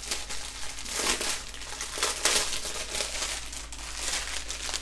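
Plastic wrapping crinkling and crackling in irregular bursts as it is pulled open around a bundle of bagged diamond painting drills.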